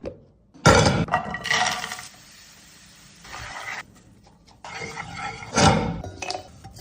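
Kitchen utensils and dishes clinking and scraping in several short bursts, with a quieter stretch in the middle.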